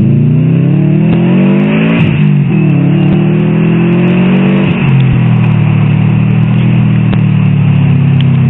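Turbocharged Subaru WRX flat-four heard from inside the cabin, revving up, dropping in pitch at an upshift about two seconds in, pulling up again and shifting once more about five seconds in, then running steadily.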